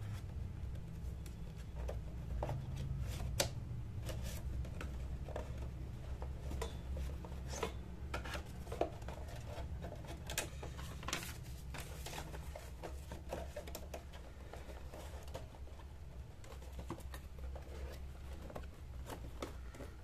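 Scattered light clicks, taps and rustles of papers and small tools being handled and put away on a desk, busiest in the first half, over a steady low hum.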